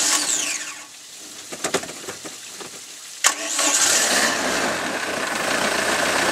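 Inline-four 3.0-litre carbureted boat engine being started: the starter cranks for a moment and stops, then about three seconds in a second try cranks it again and the engine catches and settles into a steady run.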